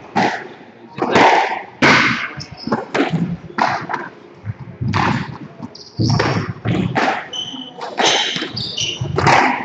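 Squash rally: the ball is struck by rackets and smacks against the court walls, giving sharp, ringing hits about once a second, with shoes squeaking on the wooden court floor between shots.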